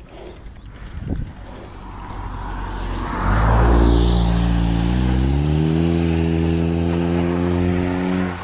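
A motor vehicle's engine close by, growing louder, then running steadily with its pitch rising in steps about halfway through, as when accelerating up through the revs. It cuts off suddenly near the end.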